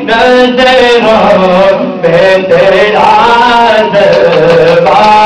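A man's voice chanting in long, held, wavering notes.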